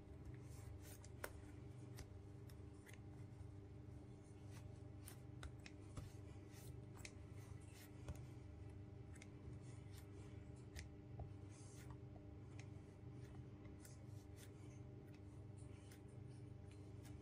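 Faint rustling and scattered soft clicks of hands packing polyester fiberfill stuffing into a crocheted amigurumi head, over a steady low electrical hum.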